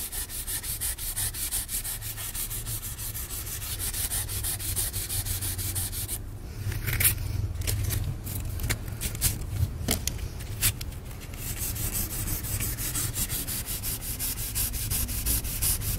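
Wet 600-grit sandpaper rubbed by hand over a cured gel-coat filler patch on a fiberglass tub, in quick, light back-and-forth strokes. This is the fine sanding that takes out the 400-grit scratches.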